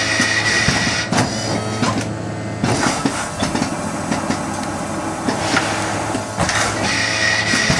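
Automated metal-forming machine running: repeated clicks and clacks from its steel tooling over a steady low hum, with a thin high whine in the first second and again near the end.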